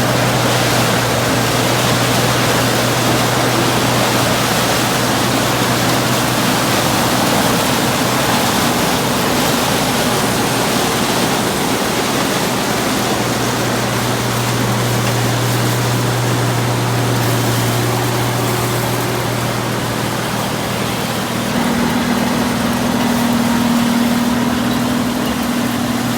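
New Holland 985 combine running under load while harvesting corn: a loud, even machine noise over a steady engine hum, with a second, higher hum joining about three quarters of the way through.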